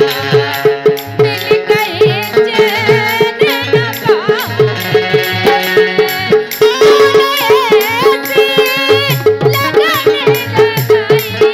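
Bundeli rai folk music: a woman sings an ornamented melody over harmonium, a fast steady drum beat and jingling percussion.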